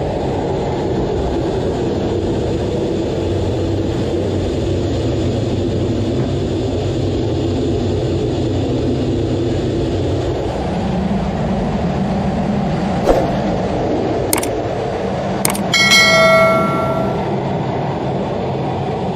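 Steady roar of jet aircraft noise during flight. Near the end, three sharp clicks are followed by a bright bell-like notification chime that rings for about a second.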